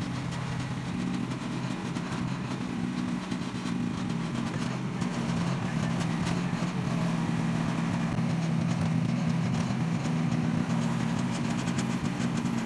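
Mini-excavator engine running steadily, getting slightly louder after the first few seconds.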